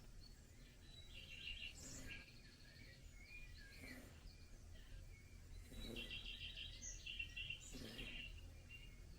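Shiba Inu puppy snoring faintly in its sleep, a snore about every two seconds, with small songbirds chirping and trilling in the background.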